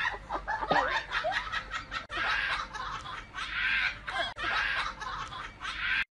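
A person laughing hard: quick runs of breathy laughs, with short breaks between them, stopping abruptly near the end.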